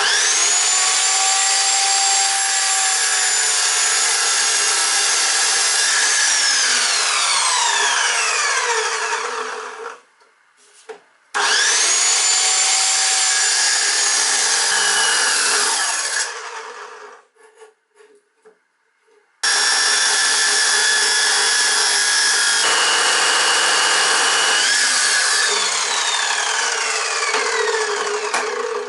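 Grinder cutting into a lawn bowl's dense hard plastic, run three times with short pauses between. Each time the motor whines up to speed, grinds steadily, then winds down with a falling whine after it is switched off.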